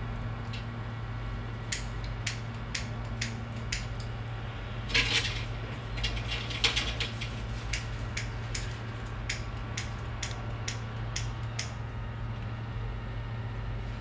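Hot air rework station blowing steadily over a Samsung A-series motherboard's LCD flex connector, with a low steady hum, while metal tweezers tick and click irregularly against the board and connector. A brief scraping rasp comes about five seconds in.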